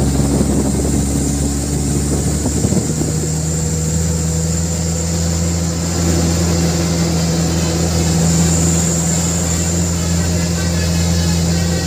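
Cargo truck's diesel engine running steadily, heard from inside the cab, with an uneven stretch before it settles into a constant low hum about three seconds in.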